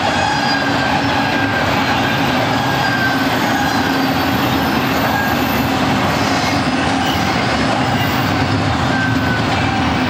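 Double-stack intermodal well cars of a freight train rolling past: a steady rumble of steel wheels on rail, with faint high squeals from the wheels now and then.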